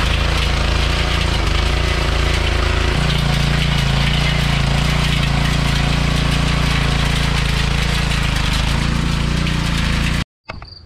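5 hp Briggs & Stratton single-cylinder engine of a Troy-Bilt Pony rear-tine tiller running steadily under load as its tines churn the soil, now running on its own fuel after the carburetor's clogged jet was cleared. The engine note shifts about three seconds in, and the sound cuts off abruptly near the end.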